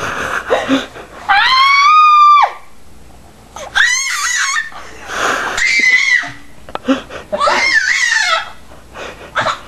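A baby's loud, very high-pitched screeches, about four in a row, the longest held for about a second: an infant of about 11 months shrieking playful 'howler monkey' sound effects for her stuffed monkey.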